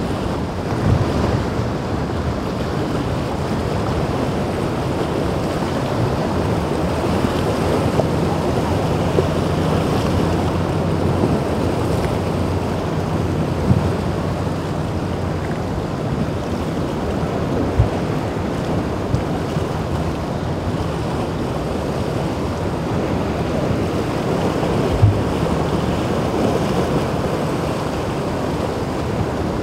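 Rough inlet surf and a yacht's wake rushing and breaking, with wind buffeting the microphone in a few short sharp thumps and a low engine drone underneath.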